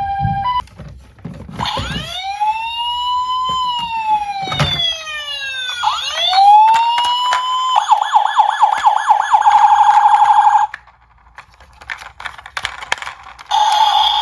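Electronic emergency siren: a brief hi-lo two-tone, then overlapping wails that rise and fall slowly, switching to a fast warbling yelp. This cuts off about three-quarters through, leaving scattered light clicks and clatter, and a siren tone starts again near the end.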